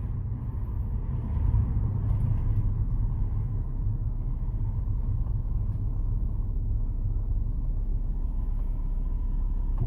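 Ford Focus ST225's turbocharged five-cylinder engine and road noise, heard from inside the cabin while driving: a steady low rumble.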